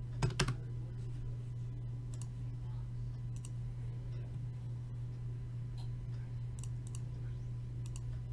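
Clicks of a computer keyboard and mouse: a quick cluster of sharp clicks about half a second in, then scattered lighter clicks, over a steady low hum.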